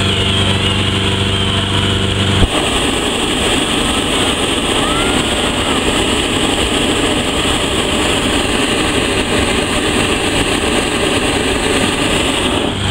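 A motor-driven inflator fan runs steadily; about two and a half seconds in, a hot-air balloon's propane burner fires with a sharp click and a loud, steady roar that heats the envelope during inflation. The burner cuts off near the end, leaving the fan's steady hum.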